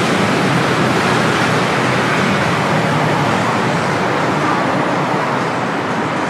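Steady road traffic noise, a continuous even wash of passing vehicles with no single event standing out.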